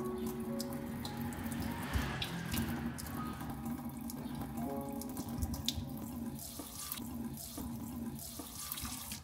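Kitchen tap running into a stainless-steel sink, the stream splashing over a potato being rubbed and rinsed under it, with scattered small knocks and clicks.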